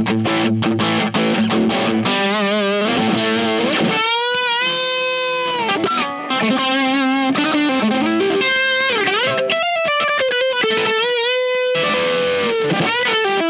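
Electric guitar played through a Wyong Rd Electronics Keris overdrive/fuzz pedal, its internal gain trimpot at full and its clipping switch off. It plays a distorted lead line with string bends and vibrato.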